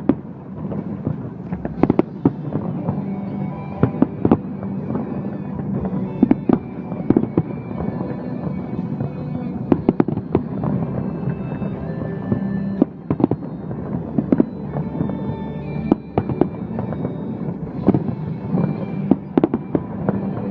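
Fireworks display: irregular bangs and crackling bursts, often several close together, over steady background music.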